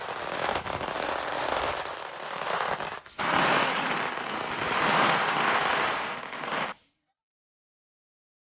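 A string of firecrackers going off in a rapid, continuous crackle, with a brief break about three seconds in, then cutting off suddenly near the end.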